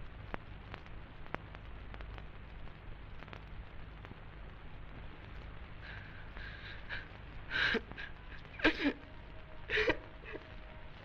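A young man sobbing in three short, heaving bursts about two-thirds of the way in, with faint whimpering just before. Under it runs the steady hiss and occasional clicks of an old film soundtrack.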